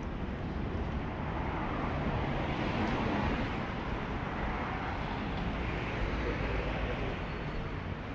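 Road traffic passing, a rushing noise with a low rumble that swells to its loudest about three seconds in and then eases off.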